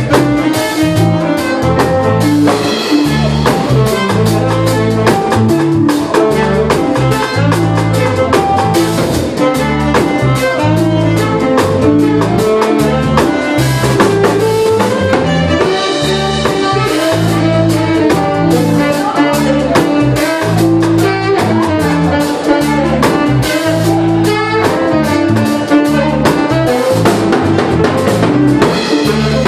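A jazz fusion band playing a tune live at its sound check, with a busy drum beat under changing bass notes and lead instrument lines.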